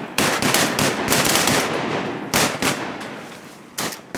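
Several shotguns firing a rapid volley at flying ducks: shots come thick and overlapping for about the first two seconds, then a few scattered follow-up shots, spread out near the end.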